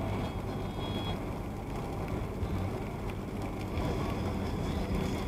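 Steady road and engine rumble heard from inside a moving vehicle's cabin while cruising.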